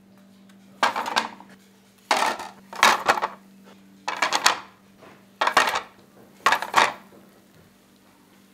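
Heavy blackened baking pans, gripped with a metal pan lifter, clattering down onto ceramic plates: six separate clatters of about half a second each, over a steady low hum.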